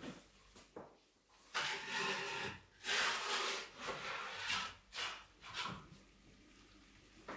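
Wooden oven peel scraping and sliding over the floor of a wood-fired oven in a series of rough strokes over about four seconds.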